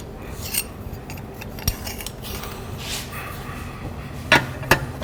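A few light metallic clicks and clinks as small metal pieces and hand tools are handled, with a short scrape near the middle and two sharper clicks near the end.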